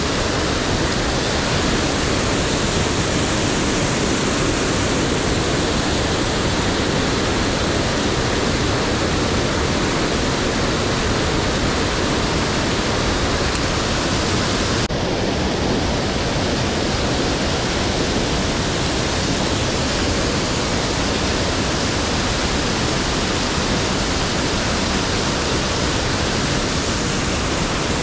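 Waterfalls and churning white water in a rocky river gorge, a loud, steady rush of falling and rushing water that shifts slightly in tone about halfway through.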